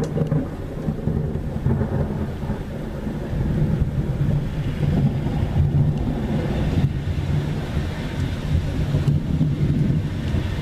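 Thunder rumbling low and steadily through a thunderstorm, with no sharp crack.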